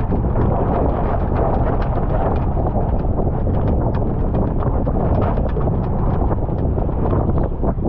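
Wind buffeting the microphone of a GP14 sailing dinghy under way, with water splashing and slapping against the hull in many short, irregular knocks.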